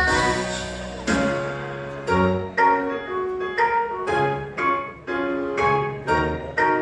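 Piano music: a melody of separate struck notes, about two a second, each ringing on briefly.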